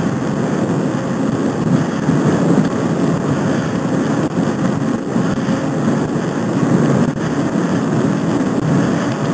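Steady rushing wind noise on the microphone of a camera mounted on a moving bicycle.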